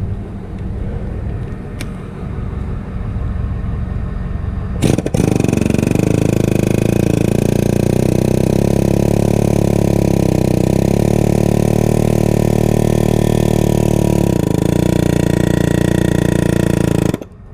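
An engine running steadily, then about five seconds in it comes up to a louder, even pitch and holds there under load for some twelve seconds before cutting off abruptly. The work fits hydraulic pressure being fed through a hose into a backhoe stabilizer cylinder to push its piston out.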